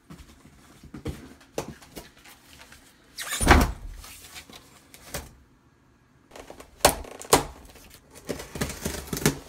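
Unboxing and handling of a monitor-mount box and its parts: cardboard and paper scraping and rustling, a heavy thump about a third of the way in, two sharp knocks a little past halfway, and a quick run of clattering near the end.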